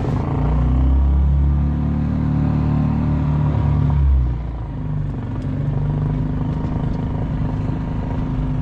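An engine running steadily, louder for the first four seconds and then easing off a little.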